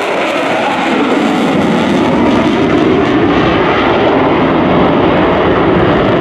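Jet noise from a Boeing F/A-18E/F Super Hornet's twin turbofan engines as the fighter banks through a tight turn overhead: a loud, steady rushing roar.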